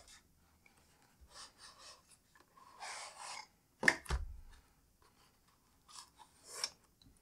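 Cardboard packaging being handled by hand: paperboard rustling and sliding as a tray is drawn out of its box, with one sharp knock just before four seconds in.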